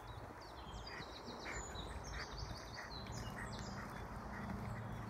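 Spring woodland birdsong, with several birds singing at once, including a wren's fast runs of short high notes. A low steady hum joins in from about halfway through.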